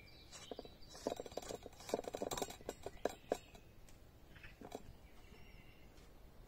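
A quick flurry of light taps and clicks lasting about two and a half seconds, with a couple more near the end, from hands and utensils working at the table; faint bird chirps.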